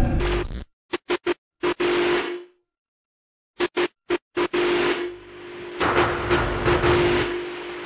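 Music: a run of short, sharp stabs broken by a silence of about a second, then a sustained passage from about halfway in.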